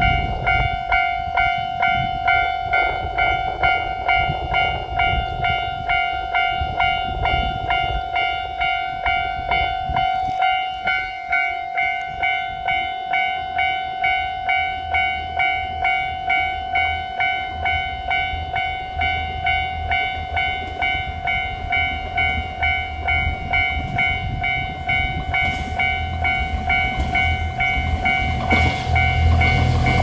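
Electronic warning bell of a Japanese railway level crossing ringing in a steady, even rhythm. In the second half the low drone of an approaching KiHa 185-based diesel railcar train builds under it, getting louder near the end as the train arrives.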